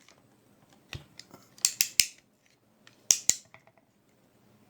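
Restored vintage ratchet wrench clicking as it is worked on a bolt: sharp metallic clicks in small groups, one about a second in, a quick run of about four around two seconds, and two more just after three seconds. The pawl is catching again, a sign the repaired ratchet works.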